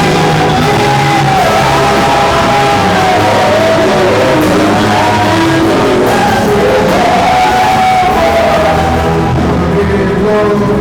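Live church praise music: a singer's voice carrying a wavering melody over a band with sustained bass notes, played loud.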